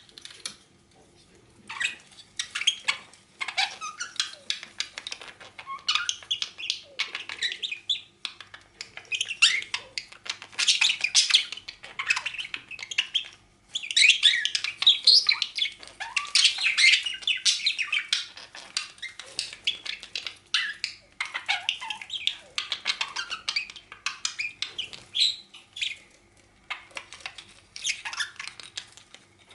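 A male pet bird chattering in a courtship display: long runs of rapid, varied high twittering and squawky notes, broken by short pauses.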